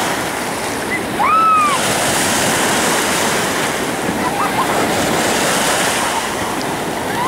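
Ocean surf washing in steadily, with wind noise on the microphone. About a second in, a brief high call rises and falls over it.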